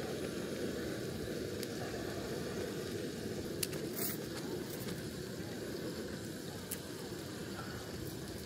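Handheld butane gas torch burning steadily, its flame held into firewood in a portable fire pit to light it. A few light knocks of wood sound near the middle.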